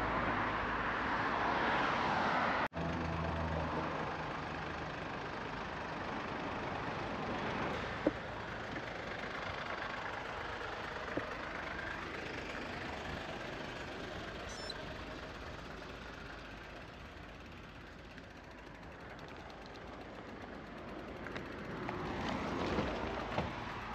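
Motor vehicles on a road: engine and tyre noise that swells near the start, dies down through the middle and builds again near the end, as if vehicles were passing.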